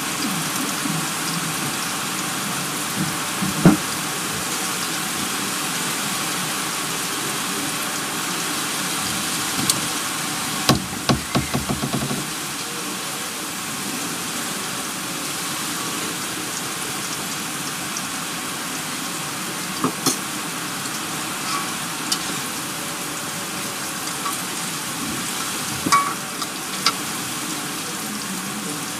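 Heavy rain pouring down steadily, a constant hiss. A few knocks and clatters sound over it, with a quick run of them about eleven seconds in.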